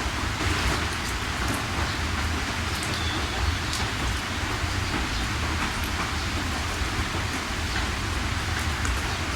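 Steady rain falling: a dense, even hiss with scattered sharper drops and a low rumble underneath.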